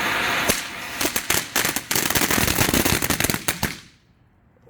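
TNT Fireworks 'REX' ground fountain spraying with a hiss, then crackling with many sharp pops. It dies away about four seconds in as the fountain burns out.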